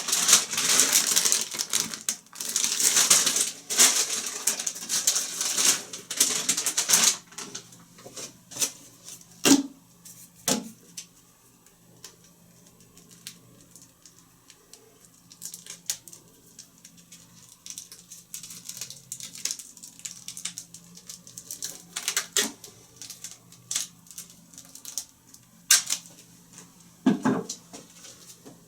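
Rustling and crackling sound effects: a dense, hissy rustle for about the first seven seconds, then scattered sharp clicks and short crackles over a faint steady hum.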